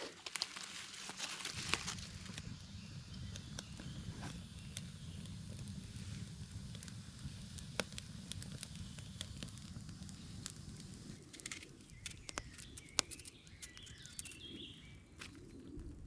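Newly lit campfire crackling: scattered sharp snaps and pops of burning kindling over a low steady rumble.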